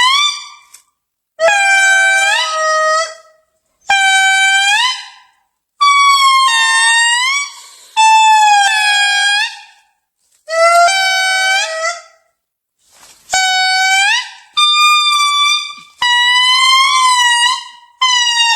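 An animal calling over and over: about nine loud, pitched calls, each a second or so long and bending in pitch, with short gaps between them.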